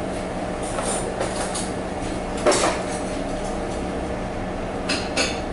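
Steady hum of a small restaurant's dining room, with a few brief knocks and clatters on top, the loudest about two and a half seconds in.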